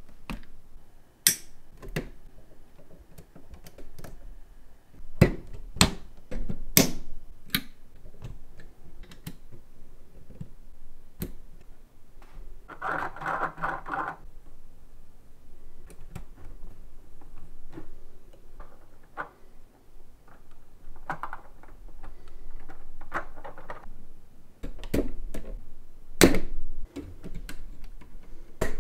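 Lego Technic plastic parts being handled and pressed together by hand: scattered sharp clicks and knocks of pins, beams and wheels snapping into place, with a short rattling stretch about halfway through.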